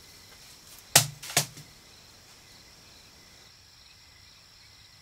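Two sharp smacks about half a second apart: a straw broom striking a person. A faint steady hiss runs underneath.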